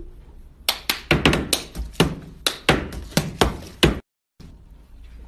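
A cup being tapped and knocked on a tabletop in a quick rhythmic pattern, about a dozen sharp strikes over three seconds, which stop abruptly about four seconds in.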